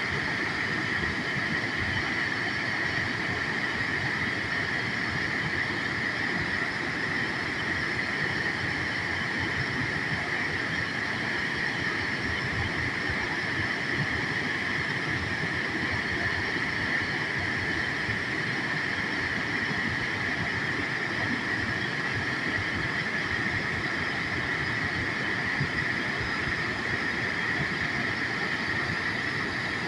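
Waterfall rushing steadily, an even wash of noise with no break.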